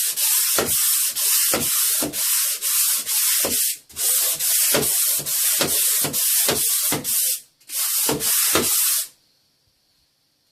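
Hand sanding of a dried plaster base coat join with abrasive paper, in brisk back-and-forth strokes at about two a second, with two short pauses. The strokes stop about nine seconds in.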